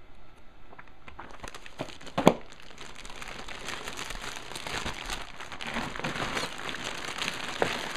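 Plastic bags around model-kit parts runners crinkling as they are handled, the rustling growing denser from about three seconds in. A single sharp tap sounds about two seconds in.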